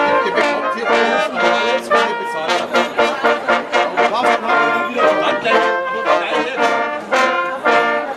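Brass band playing a tune live: trumpets and trombones in several parts with a steady rhythm.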